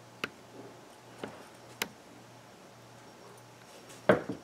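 Small metal hardware being handled: a few sharp light clicks as the nuts come off a wire take-up eye bolt, three in about two seconds, then a louder knock near the end as the parts meet the table and quadrant.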